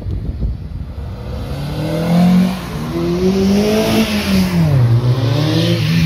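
A car engine accelerating hard as the car drives past and away, revving up. Its pitch dips near the end, then climbs again.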